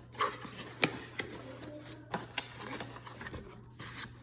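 A handful of sharp, irregular clicks and light knocks: the metal and plastic parts of an Opteka 500mm lens and its T-mount adapter being handled and fitted together.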